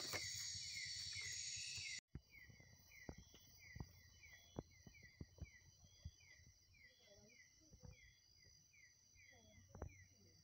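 Night-time insect chorus of crickets: a steady high trill with short falling chirps repeating a few times a second. It is louder for the first two seconds, then drops suddenly to a quieter stretch of the same chirping, with scattered knocks and faint distant voices.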